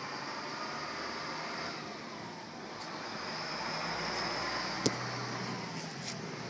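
Steady motor-vehicle noise with a slow rise and fall in pitch, broken by one sharp click about five seconds in.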